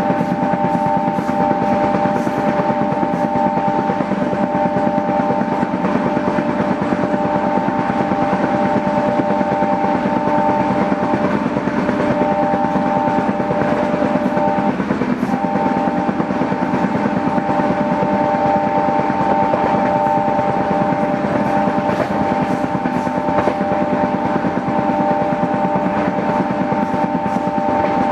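Passenger train running, heard on board: a steady rumble and rattle of the coach on the track, with a high steady whine over it that breaks off briefly about halfway through.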